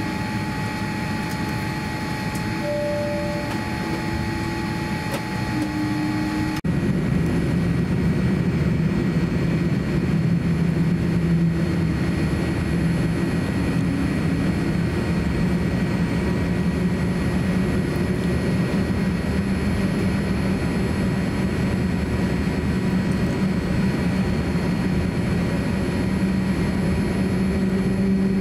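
Steady cabin hum inside a Boeing 787-9 airliner with several fixed tones. About six and a half seconds in it changes abruptly to a slightly louder, lower drone of the jet engines as the airliner taxis.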